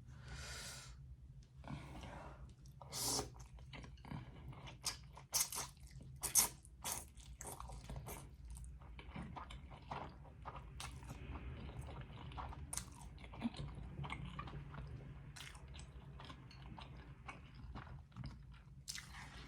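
Close-miked chewing of noodles and dumplings: a steady run of small wet mouth clicks and smacks, a few louder ones in the first seven seconds.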